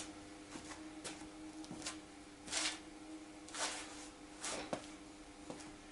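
Faint footsteps and soft handling noises as a person moves about a garage workshop, three short scuffs about a second apart in the middle, over a steady low hum.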